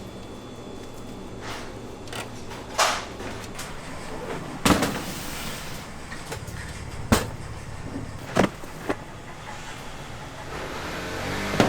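Kitchen work: about five sharp knocks and clatters, spaced a second or two apart, over a steady low hum.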